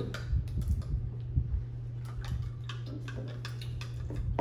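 A plastic spoon stirring powdered drink mix into water in a clear plastic cup, ticking against the sides of the cup in quick, irregular clicks.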